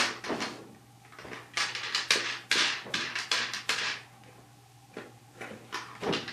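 Hard toy pieces clattering and knocking together as they are handled, in irregular bursts of quick clicks with a brief lull about four seconds in.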